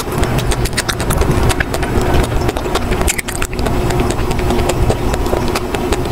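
Close-miked chewing of a frozen ice cream bar: a run of irregular crackly clicks, over a steady low hum.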